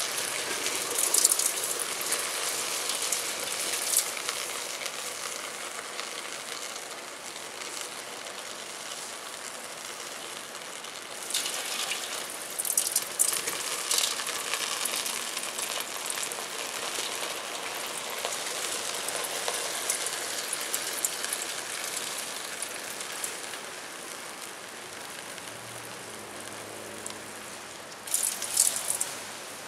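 Magnesium shavings burning fiercely in a galvanized metal tub: a steady sizzling hiss with crackling sparks. It flares louder about a second in, around four seconds, again from about eleven to fourteen seconds, and near the end.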